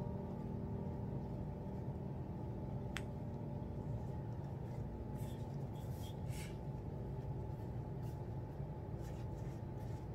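Hands rolling baguette dough and smoothing a cloth towel on a stone countertop: faint rubbing and brushing, with a single click about three seconds in, over a steady low background rumble.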